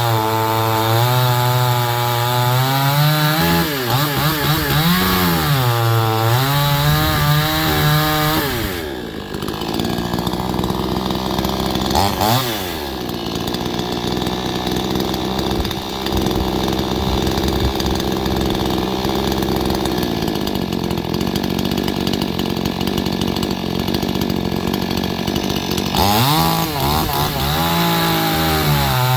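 Brand-new Proyama PCS50 two-stroke chainsaw (a 49.3cc Red Max G5000 clone) running at full throttle, its pitch sagging and recovering as the chain loads in a cut. About nine seconds in it drops to a lower, steadier running with one quick blip of throttle, and near the end it goes back to full revs with the pitch dipping again.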